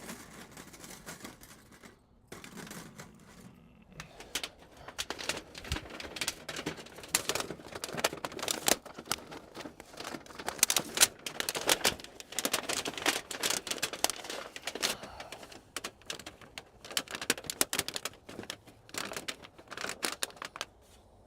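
Rapid, irregular clicking and clinking of small metal parts being handled, the rings for the titanium stove's pipe.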